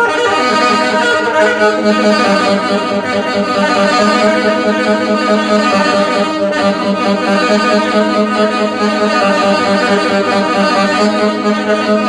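Live band playing an instrumental passage of a song, with no singing, over a steadily held low note.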